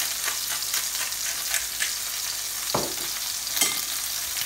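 Two pork chops frying in hot oil in a frying pan: a steady sizzle with many small crackles and pops.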